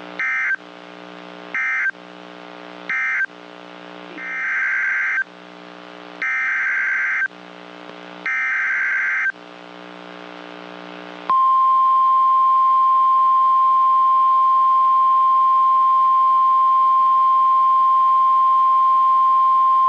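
NOAA Weather Radio Emergency Alert System signalling: three short data bursts ending one warning, then three longer header bursts announcing the next. About eleven seconds in, the steady 1050 Hz warning alarm tone starts and holds for about nine seconds, over a faint steady radio hum.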